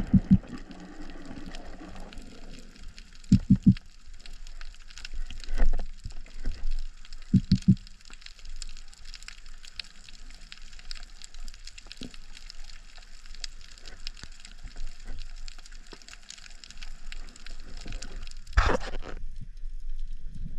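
Underwater ambience picked up by a camera in a waterproof housing during a breath-hold dive: a steady fine crackling, with short bunches of dull low knocks at the start, about three and a half seconds in and about seven and a half seconds in, and one sharper burst near the end.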